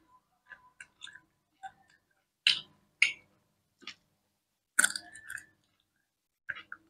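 Close-miked chewing of grilled octopus: a few short wet smacks and clicks of mouths and lips, with quiet gaps between, the loudest about halfway through.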